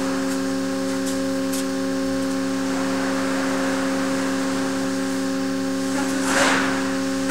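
Steady machine hum made of several fixed tones from a structural-test rig's hydraulic loading equipment. A short rush of noise comes about six seconds in.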